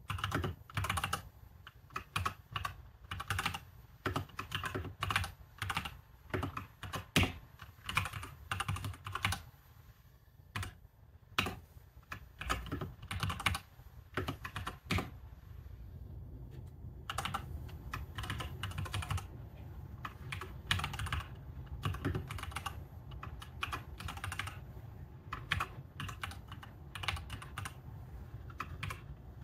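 Typing on a computer keyboard: quick runs of key clicks with a couple of short pauses, over a low steady hum.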